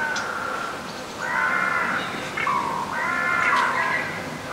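Music: a plain melody of held notes, each about half a second to a second long, stepping up and down in pitch.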